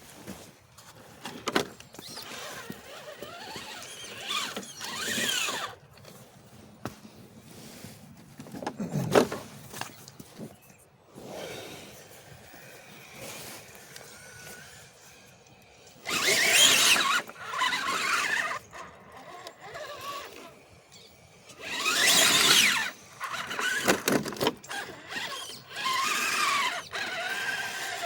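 Electric RC rock crawler's motor and gearbox whining in bursts as the throttle is worked, the pitch rising and falling with wheel speed. There is a sharp knock about nine seconds in.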